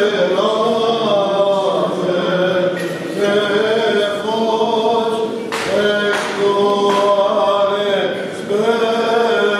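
Male voices chanting a Byzantine Orthodox Easter hymn in long, slowly bending melismatic phrases over a low held note.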